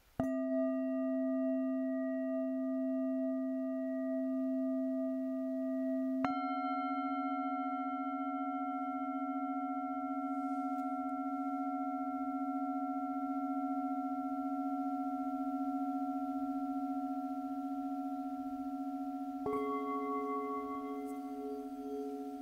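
Singing bowls struck one after another, three strikes: one at the start, one about six seconds in and one near the end. Each bowl rings on with long, overlapping tones that waver slowly as they sustain.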